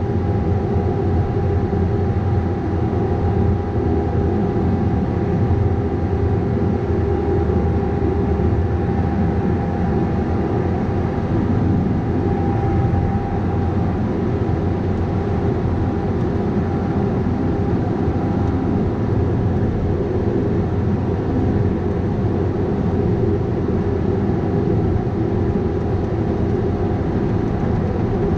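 Bobcat 337G mini excavator's diesel engine running steadily under work, with a thin steady whine above the engine drone.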